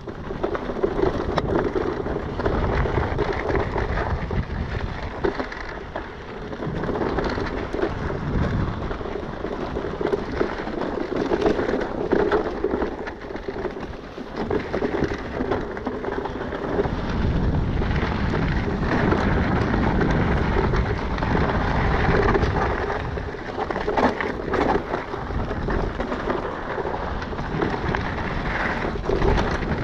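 Mountain bike riding fast down a rocky gravel trail: tyres crunching and rumbling over loose stones, with rattles and knocks from the bike, and wind rushing over the microphone.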